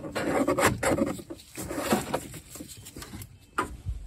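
Rubber A/C drive belt rubbing and scraping against the engine fan and shroud as it is worked out by hand, with irregular knocks and a louder one about three and a half seconds in.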